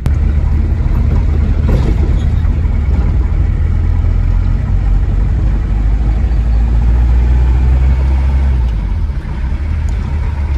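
Engine and road noise of an old Toyota Hilux pickup heard from inside the cab while driving: a steady low drone that eases off a little near the end.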